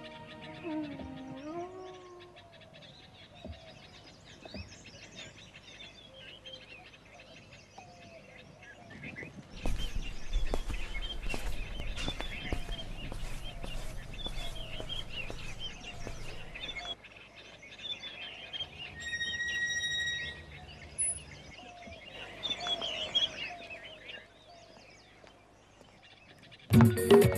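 Birds chirping and twittering against a faint outdoor background. A louder stretch of crackling, rustling noise runs through the middle, and music starts just before the end.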